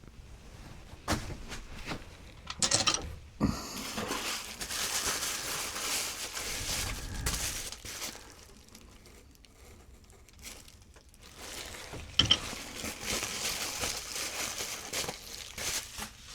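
Packing wrap crinkling in two long stretches as rocks are unwrapped from a box, with a few sharp knocks, the sharpest about twelve seconds in.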